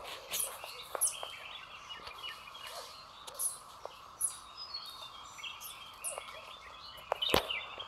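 Forest birds chirping and calling over and over, short high falling notes and busier chatter, over a steady background hiss. A single sharp knock, the loudest sound, comes about seven seconds in.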